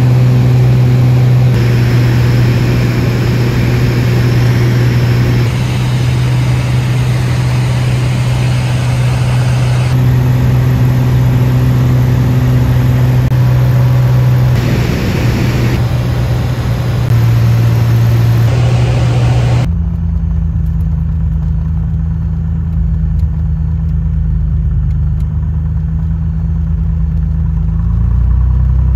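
Single-engine propeller plane's engine and propeller droning steadily inside the cabin in flight, a loud steady low hum. About two-thirds through it changes to a lower, duller engine note, heard with the plane on the ground.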